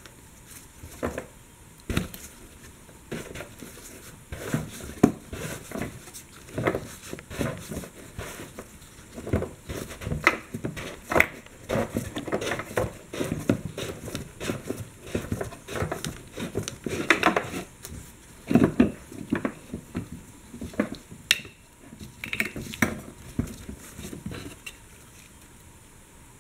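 The plastic retaining ring of a 2006 Ford F-250's in-tank fuel sending unit being unscrewed by gloved hands: irregular scraping, clicking and knocking as it turns in its threads, busiest in the second half.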